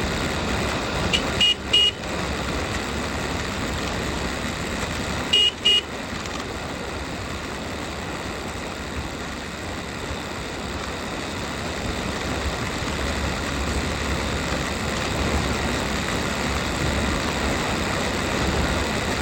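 A motorcycle riding at road speed, with a steady rush of wind and road noise. A horn gives two quick double beeps, about one and a half seconds in and again about five and a half seconds in.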